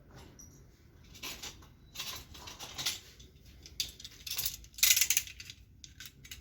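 Small metal hand tool scraping, snipping and clicking in short bursts against a blender motor's coil winding, working the covering away from the buried thermal fuse; the loudest burst comes about five seconds in.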